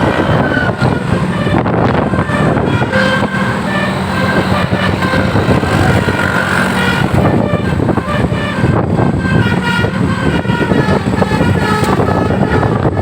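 Bus telolet horn of the basuri type playing a continuous string of short melodic toots, stepping from note to note, over a steady low drone.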